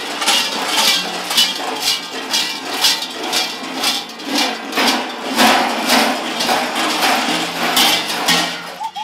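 Large bells strapped to running fur-costumed Klaubauf figures, clanging with each stride at about two to three strokes a second in a dense metallic clatter.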